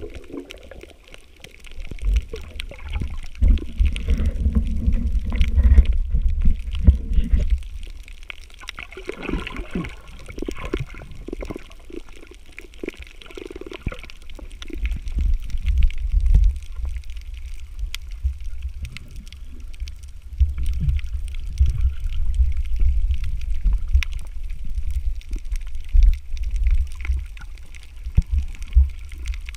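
Underwater sound picked up by a camera in a waterproof housing: a low rumble of water moving against it that swells and fades, with gurgling and scattered crackling clicks.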